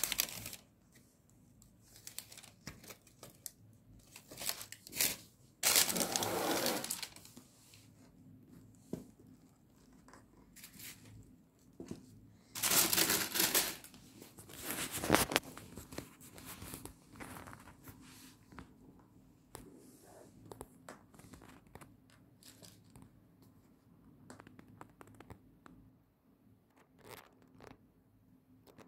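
Tissue paper rustling and crinkling in a shoe box as sneakers are unwrapped, in a few bursts of a second or so, with smaller handling taps and clicks between them that thin out later on.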